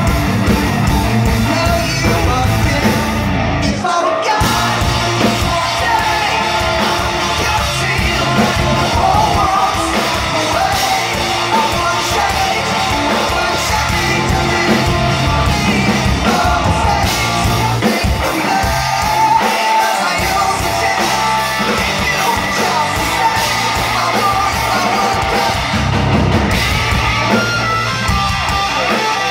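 Live hard-rock band playing loud, with distorted guitars, bass and drums and a singer yelling and singing over them, heard from within the crowd. The bass and drums break off briefly about four seconds in and again near twenty seconds.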